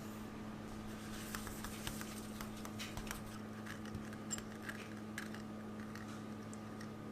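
Scattered light clicks and taps from handling kitchen utensils, over a steady low electrical hum.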